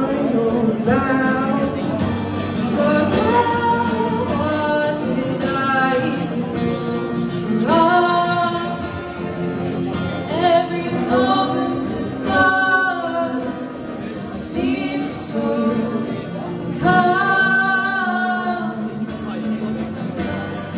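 A woman singing an indie song into a microphone over a strummed guitar, played live through a PA and heard from the audience.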